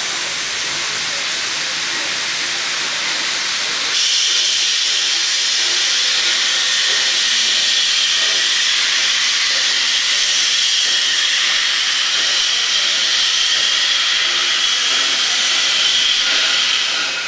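Steam locomotive 3237 standing at the platform, venting steam in a steady, loud hiss that gets louder about four seconds in.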